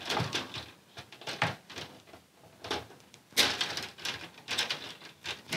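Diagonal cutting pliers snipping through a fluorescent ballast's insulated lead wires, one after another: a series of short sharp clicks, the loudest about three and a half seconds in.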